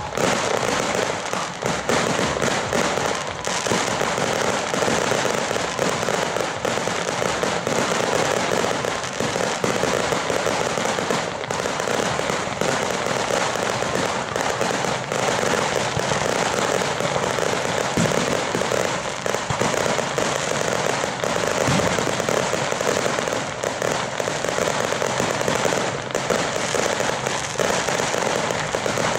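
Ground fireworks going off continuously: a dense, unbroken crackle of many small bangs, with no pause.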